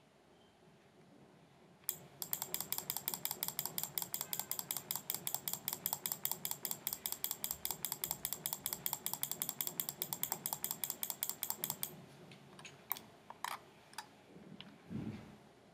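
Rapid, evenly spaced clicking of a computer mouse button, about eight clicks a second for some ten seconds, as a count is stepped up one by one. A few single clicks and a soft low thump follow near the end.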